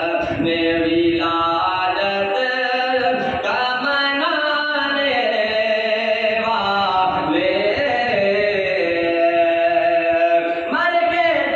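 Unaccompanied male voice chanting a devotional recitation, holding long notes that glide up and down in pitch.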